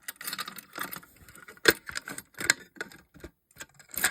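A series of irregular clicks and light rattles from hands working the fire alarm equipment, the sharpest click about a second and a half in; no alarm horn is sounding.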